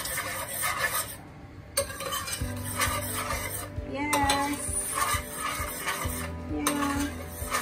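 Metal spoon stirring thick melted sugar in a stainless steel pot, scraping and clinking against the pot's bottom and sides in repeated strokes, with a short lull about a second in.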